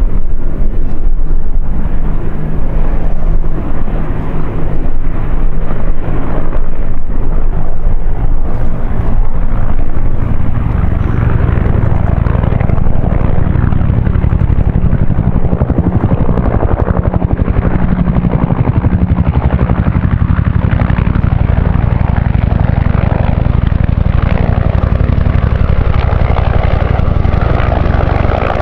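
Bell UH-1H Huey helicopters and an AH-1 Cobra passing overhead in formation: the loud, steady beat of their two-bladed main rotors with turboshaft engine noise.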